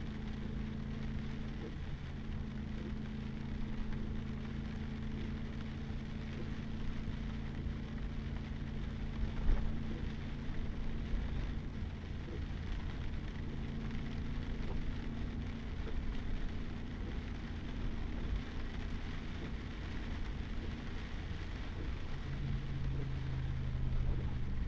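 Pickup truck's engine running steadily under a constant rumble of tyres on a wet mud-and-gravel road, heard from inside the cab, with a hiss of rain and spray. A single sharp knock about nine and a half seconds in, and the engine note shifts near the end.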